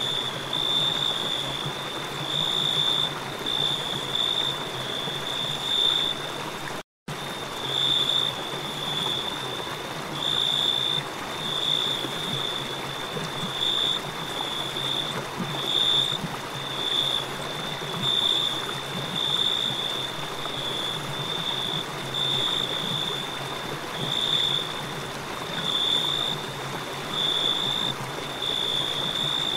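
Crickets chirping in a steady high trill that pulses about once a second, over the steady rush of a flowing river. The sound drops out completely for a split second about seven seconds in.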